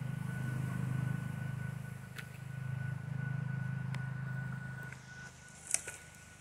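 A low steady motor hum that drops away about five seconds in, with a thin high steady tone above it. A few sharp clicks, footsteps on leaf litter, come near the middle and end.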